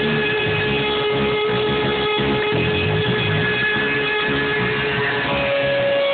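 Live hard rock band playing loud: one long held electric guitar tone drones over a choppy bass and drum rhythm, jumping to a higher pitch about five seconds in.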